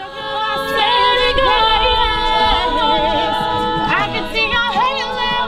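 A cappella singing by several voices, holding long notes that slide between pitches.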